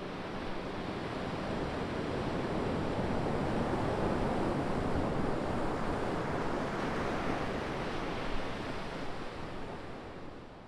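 Surf on a sandy Baltic Sea shore: a steady wash of small breaking waves, growing louder over the first few seconds and fading near the end.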